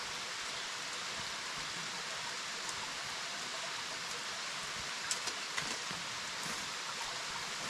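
Steady hiss of a small stream running over rocks, with a few faint clicks in the second half.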